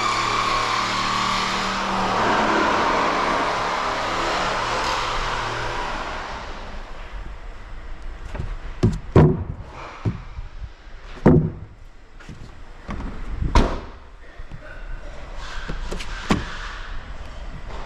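A motor vehicle's engine running steadily, fading out over the first six seconds. After that come several loud slams and knocks, like car doors or panels being shut.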